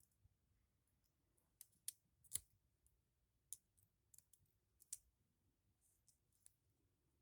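Faint, irregular small clicks, a dozen or so spread over several seconds against near silence, the loudest about two and a half seconds in.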